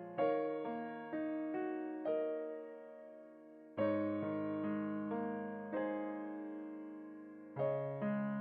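Background music: a slow, gentle piano piece, notes and chords struck and left to ring and fade, in phrases of about four seconds.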